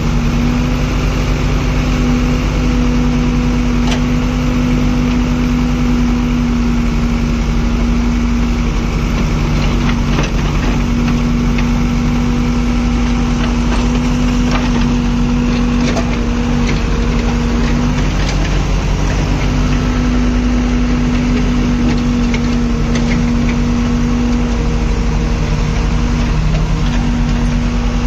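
JCB backhoe loader's diesel engine running steadily as the backhoe digs and loads earth, with a few faint knocks along the way.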